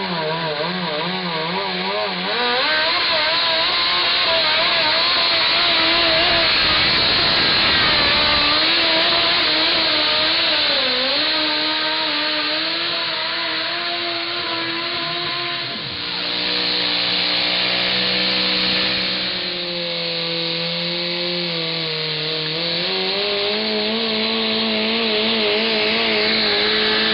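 Modified garden tractor engines running at full throttle while pulling a weight-transfer sled through dirt. The pitch climbs early on, then wavers and sags as the load builds. About 16 s in, a second tractor's engine takes over, running steadily high under load.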